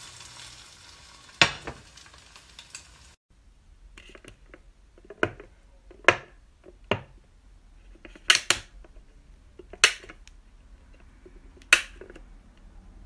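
A spatula and frying pan clatter with one sharp knock. Then come a series of short, sharp plastic clicks, irregularly spaced, as the raised domes on a disposable fountain-drink cup lid are pressed in.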